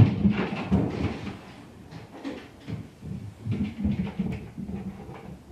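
Irregular thumps and rumbling coming through the ceiling from the apartment above: a dog running and jumping off furniture onto the hardwood floor upstairs. The thumps bunch together in the first second and again about three and a half seconds in.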